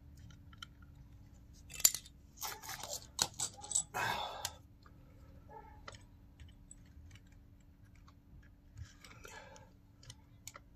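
Hand tools and small metal parts being handled: a sharp click about two seconds in, then a couple of seconds of clattering and scraping, then a few lighter knocks near the end, over a faint steady hum.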